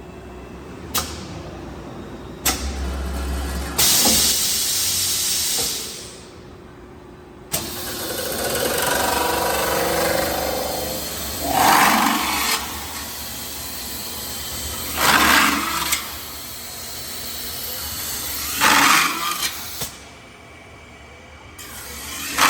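CNC metal-spinning lathe running through its cycle: machine running noise with clicks, a loud hissing stretch, and several sharp surges of noise a few seconds apart.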